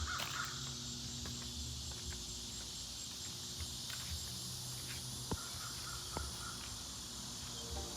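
Outdoor ambience: a steady high insect drone over a low hum, with a crow cawing briefly at the very start and a couple of faint ticks later on.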